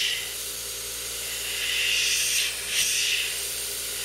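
Airbrush hissing as it sprays thin black paint lines, with the air swelling louder in short spells, once for about a second near the middle and briefly again near the end, as the trigger is worked.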